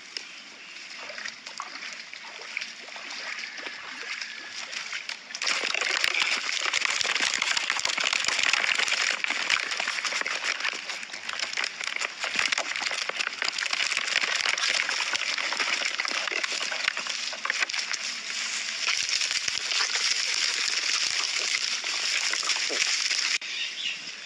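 Water splashing and sloshing, quieter at first, then a loud, dense, crackling splashing that starts suddenly about five seconds in and stops abruptly near the end.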